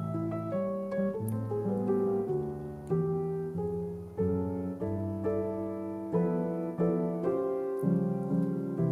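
Background piano music, a run of single notes and chords changing every half second or so.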